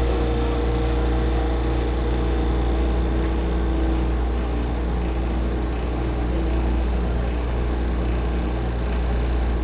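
Walk-in freezer condensing unit running steadily, a strong low hum over an even mechanical rush, as the compressor pumps down because the box temperature is satisfied. It shuts off at the very end.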